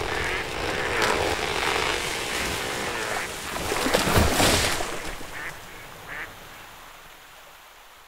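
A beaver-felled tree toppling into the pond: branches and leaves rushing as it falls, a heavy crash about four seconds in, then the noise dying away. A few short quacking calls follow just after the crash.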